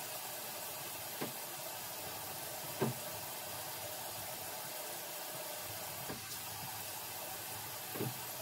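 Steady background hiss in a small bathroom, with four faint, brief taps from handling as hair is worked by hand.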